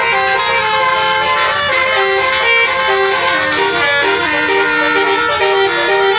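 Basuri (telolet) musical horn on a car playing a continuous melody, several horn tones sounding together and changing note in quick steps.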